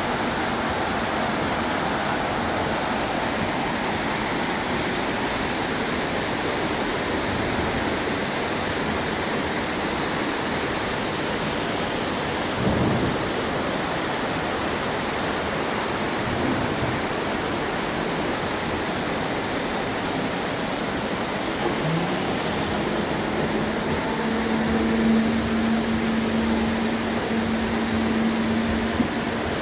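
Waterfall rushing as a steady, even roar of falling water. A steady low hum joins in during the last few seconds.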